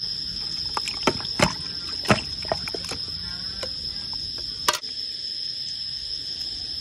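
A metal tin knocking against a bowl and splashing in its water as small fish are tipped out of it, several sharp knocks in the first three seconds and one more a little before five seconds. A steady high-pitched hum runs underneath throughout.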